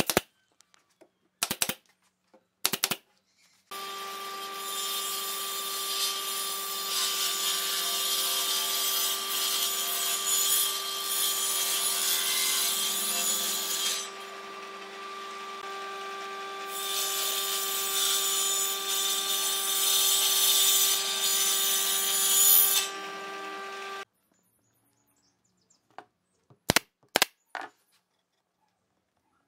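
Table saw running with a steady hum, ripping a sheet of plywood with a loud hiss that eases off briefly partway through and then returns, before the saw stops abruptly. It is framed by sharp single shots of a pneumatic nail gun: about three at the start and a few more near the end.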